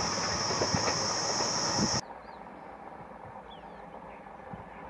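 Train passing the camera and running away: wheels knock and clatter on the rails under a steady high hiss. About two seconds in, this cuts off sharply to a quiet scene with a faint low rumble and a few bird chirps.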